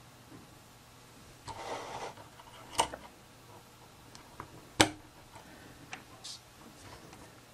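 Plastic toy parts being handled and snapped together: a short rustle, then two sharp clicks about two seconds apart, with a few lighter ticks.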